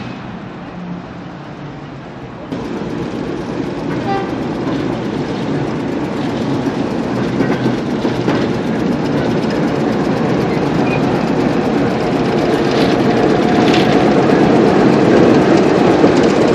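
British Rail Class 08 diesel shunter running, its English Electric six-cylinder engine growing steadily louder as the locomotive comes up and passes close by. The sound jumps up suddenly about two and a half seconds in, after a quieter stretch of distant rail noise.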